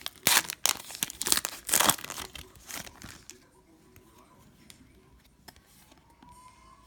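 Cellophane wrapper of a trading card pack being torn open and crinkled, a dense crackling for about the first three seconds, then only faint handling sounds.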